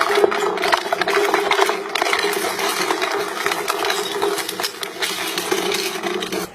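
A crushing machine running with a steady motor hum while the material being crushed gives off rapid, irregular cracking and crunching.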